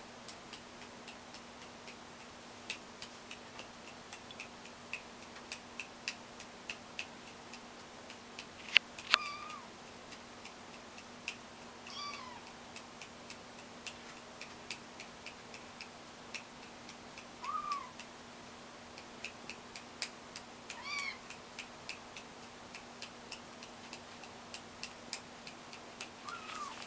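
Young kitten mewing five times, short high-pitched calls several seconds apart, over a steady soft ticking. A sharp click comes just before the second mew and is the loudest sound.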